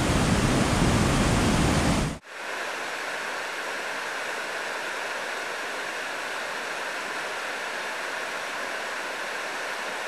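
A fast creek running high, rushing steadily. For about the first two seconds it is louder with a heavy low rumble, then it cuts suddenly to a quieter, even rush of white water.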